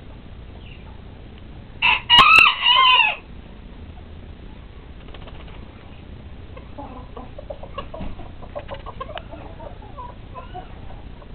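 A bantam rooster crows once, a short crow about two seconds in. The crow is followed from about five seconds in by soft, scattered clucking from the flock.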